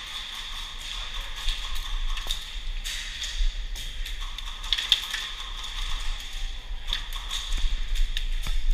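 Indoor airsoft game: scattered sharp taps and clicks of airsoft fire over a steady hum and hiss.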